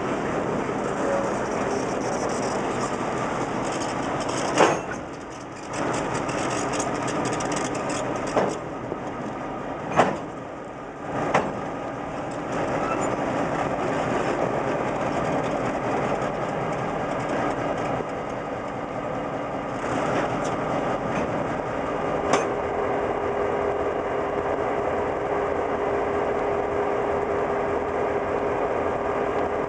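CN diesel locomotives rolling slowly past on the rails, a steady rumble of engines and wheels, with a few sharp knocks and a steady hum that comes in about two-thirds of the way through.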